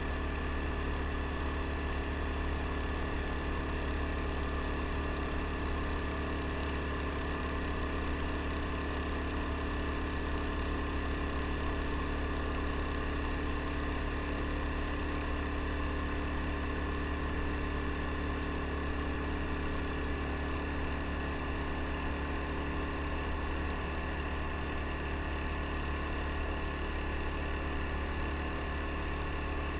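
Mokai motorized jet kayak's small single-cylinder four-stroke engine running at a steady cruising throttle: a constant drone with a low hum that holds even throughout.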